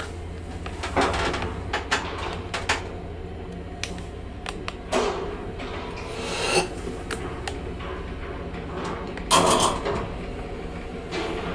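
Doors of a 1977 ZREMB traction elevator being worked at a landing: the sliding car doors and landing door opening and closing with a run of clicks and knocks, a swish near the middle and a loud clunk about nine seconds in, over a low steady hum.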